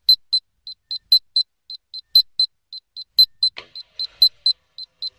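Rapid, short, high-pitched electronic beeps on one pitch, about three to four a second in an uneven pattern, from the rocket's onboard electronics beeper.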